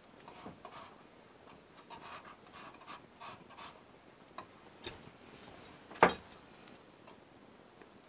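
Metal palette knife scraping and rubbing as it mixes oil paint on a palette: faint, repeated short strokes, then a couple of sharp clicks, the louder one about six seconds in.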